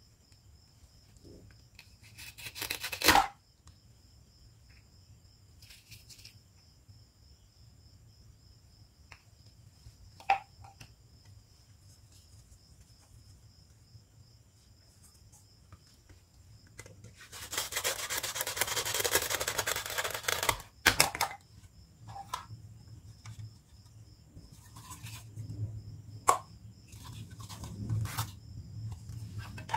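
Velcro joins on plastic toy fruit halves tearing apart: a short rasp about three seconds in and a longer one of about three seconds in the middle. Between them, hard plastic pieces click and tap against each other and the board.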